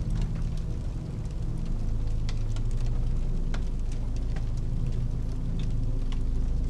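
Crackling fire, with sharp irregular pops, over a slow, deep ambient synth pad that holds low sustained tones.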